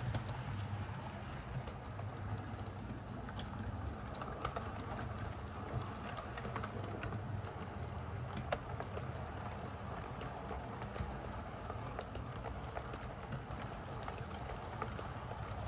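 Model railway train running on its track: the locomotive's electric motor gives a steady hum while the wheels tick irregularly over the rails.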